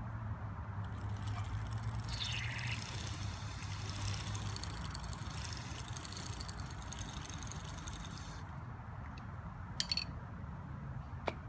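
Aerosol chain lubricant hissing out of the can through a tube attachment onto a bicycle chain for about seven seconds, starting about a second in and cutting off sharply. Two short, sharp clicks near the end.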